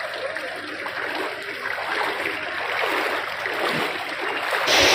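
Floodwater rushing and splashing, a steady wash of water noise that grows louder, then shifts abruptly near the end to a louder, hissier water sound.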